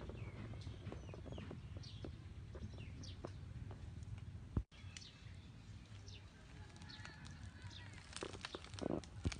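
Birds calling in the background, short falling chirps repeated again and again, over a steady low outdoor rumble. The sound cuts out for an instant about four and a half seconds in.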